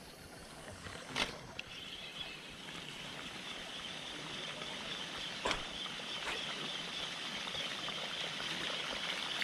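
A steady, high-pitched insect drone, like rainforest cicadas, sets in about two seconds in and holds on. A few sharp clicks sound over it.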